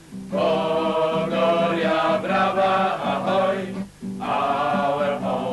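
Group singing in chorus over a steady held low note, with a short break about four seconds in.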